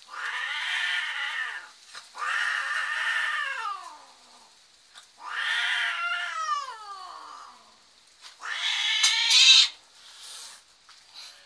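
Domestic cats mating: the female yowls in four long drawn-out calls, the middle two falling in pitch at the end. The last is the loudest and harshest and stops abruptly, the cry typical at the end of copulation as the male lets go.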